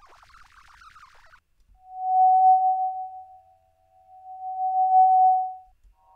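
An audio sample transformed with Composers Desktop Project (CDP) processing, played back in the Renoise sample editor: a single steady whistle-like tone that swells up and fades away twice. It follows a faint, crackly warbling tail that dies out a little over a second in.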